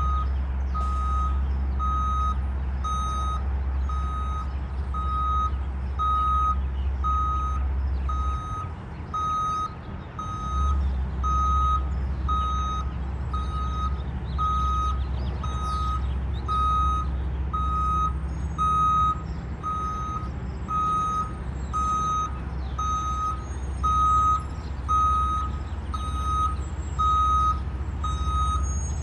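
Backup alarm on a reversing piece of paving equipment beeping steadily about once a second, over the low rumble of a diesel engine that dies away briefly about nine seconds in.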